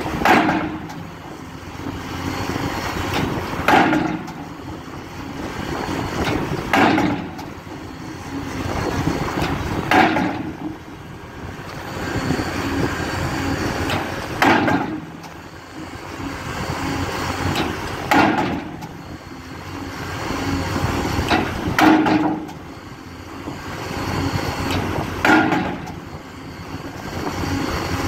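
A 16-ton pile hammer driving a steel pile casing: a heavy blow every three to four seconds, eight in all, with steady machine noise swelling between blows.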